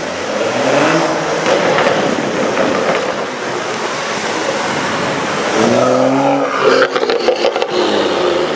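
2016 BMW M135i's turbocharged straight-six through a Remus cat-back exhaust, revving up in pitch twice, with a quick string of sharp crackles and pops on the second rev as it comes off the throttle.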